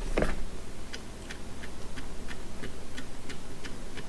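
A soft handling thump, then an even run of sharp clicks about three a second from a video light's colour-temperature control as it is stepped.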